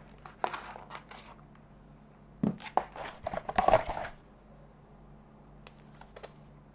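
Brown cardboard shipping insert rustling and scraping as a boxed iPhone is taken out of it, with a few light taps and clicks from the handling. The cardboard noise comes as a burst about two and a half seconds in that lasts over a second and is the loudest part; a couple of faint ticks follow near the end.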